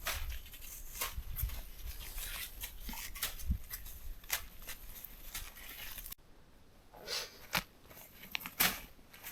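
Snowshoe footsteps crunching in snow, a steady walking rhythm of roughly one and a half steps a second. About six seconds in, the sound cuts abruptly to quieter, more scattered crunches.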